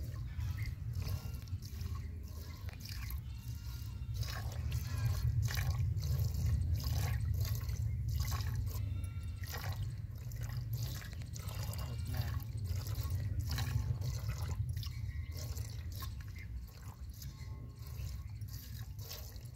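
A cow being hand-milked: rhythmic squirts of milk from alternating teats hitting the milk pail, in a steady rhythm, over a steady low rumble.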